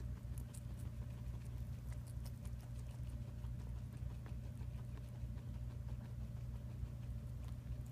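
Guinea pigs chewing vegetables: quick, irregular crunching clicks, thickest in the first few seconds, over a steady low hum.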